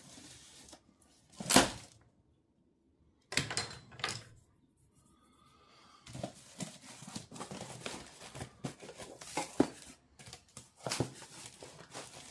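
Cardboard box and plastic packaging being opened and handled: tearing, rustling and small clattering knocks as parts are taken out, with one sharp knock about a second and a half in.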